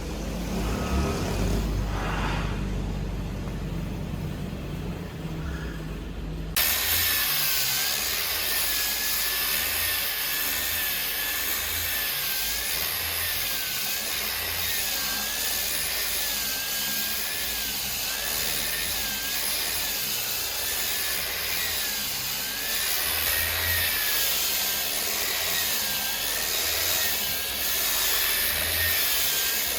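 Woodworking machinery running. A low engine-like rumble gives way suddenly, about six seconds in, to a loud, hissing machine noise with a thin whine that wavers up and down at an even pace, typical of a power saw or planer working wood.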